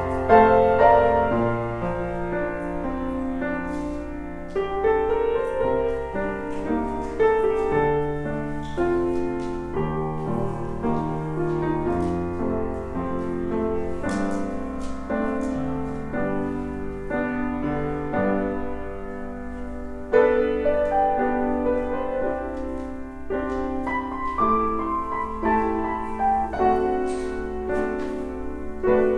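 Slow instrumental keyboard music playing, with held chords under a melody line.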